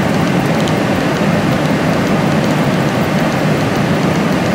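Steady cabin noise of a Boeing 747-8 airliner in cruise: an even, unbroken rush of airflow and engine noise with no change in pitch.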